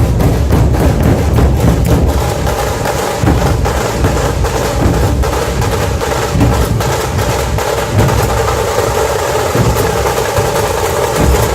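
Puneri dhol-tasha ensemble drumming loudly and continuously: deep, booming dhol beats under rapid, dense strokes of the tasha.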